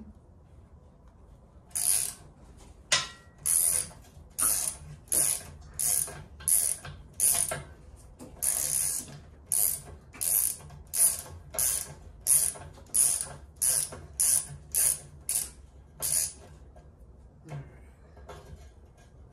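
Hand ratchet wrench clicking in about twenty quick back-strokes, roughly one and a half a second, while working bolts loose on a garden tractor frame. It starts about two seconds in and stops a few seconds before the end.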